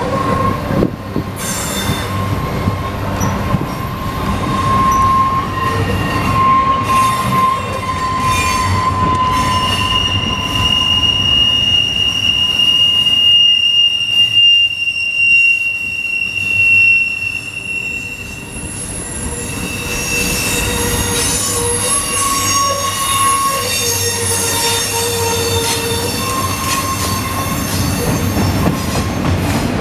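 Double-stack container train rolling past, its steel wheels squealing on the rails in long held tones, several at once, that fade in and out over the steady rumble of the cars.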